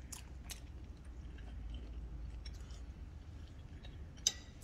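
Faint chewing of a mouthful of creamy salmon and shrimp, with a few soft wet clicks and one sharper click about four seconds in.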